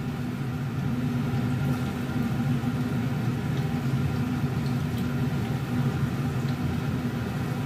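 Kitchen range hood extractor fan running with a steady low hum.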